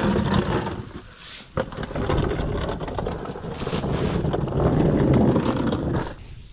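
Rushing, buffeting air noise on the microphone, heaviest in the low end, with a few short sharper hisses; it drops away about six seconds in.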